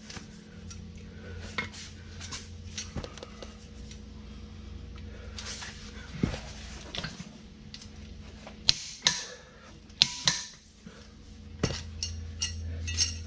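Metal tools and parts clinking and clanking as they are handled and set down, in irregular knocks with a few sharper clanks about nine and ten seconds in, over a low steady hum.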